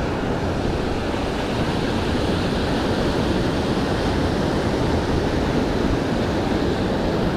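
Surf breaking and washing up the shore in a steady rush of noise.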